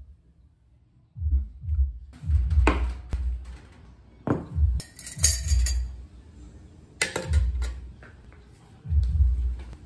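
Dishes and cutlery being set down on a table: a run of low thuds with a few light clinks and a short clatter of ceramic and metal.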